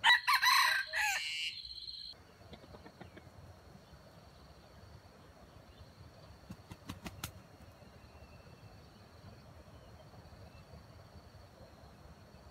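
A junglefowl rooster crows once, loud, for about two seconds. A steady high insect whine carries on after it, with a few faint clicks in the middle.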